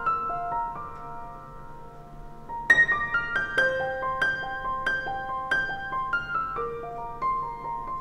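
Background piano music: a slow melody of single struck notes that ring and fade, with a louder chord a little under three seconds in.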